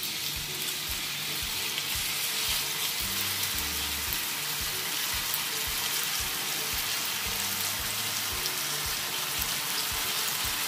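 Diced prickly pear cactus pads frying in hot oil over a strong flame: a steady sizzle.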